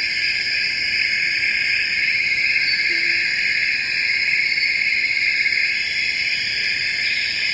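Night-time tropical rainforest insect chorus: crickets and other insects trilling steadily and densely at several pitches at once, with a faint short call about three seconds in.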